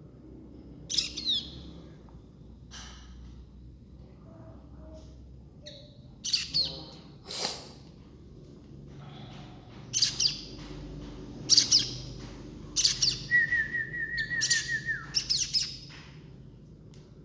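Baby birds chirping in several short bursts of high, thin calls, with a rapid even trill a little past two-thirds through.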